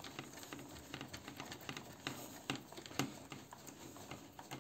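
Phillips screwdriver driving a screw into a cardboard panel: light, irregular clicks and scrapes, a few sharper ones in the middle.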